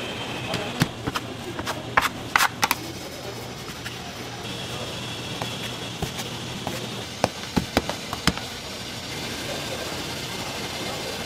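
Irregular sharp knocks and taps from dough being kneaded and handled on a wooden worktable, a cluster about two seconds in and another near eight seconds, over a steady background hum.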